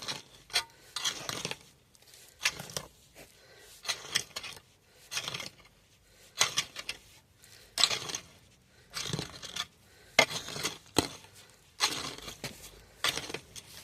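Digging in the soil of a potato bed: a run of short, irregular scrapes and crunches, roughly one or two a second.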